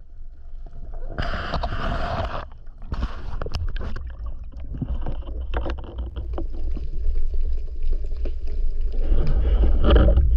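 Water noise heard underwater during a free dive: a steady low rumble with scattered clicks and knocks, a burst of hissing noise about a second in, and louder water noise near the end as the diver nears the surface.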